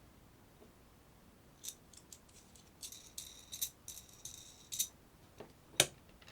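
Small hard objects being handled: a run of light scraping and rattling, then a small click and a sharper, louder click near the end.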